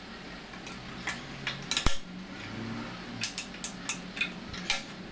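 Small metallic clicks and scrapes of pliers working the ring lock (retaining clip) off an air-conditioner fan motor shaft at the fan blade hub. The clicks come irregularly, the sharpest about two seconds in.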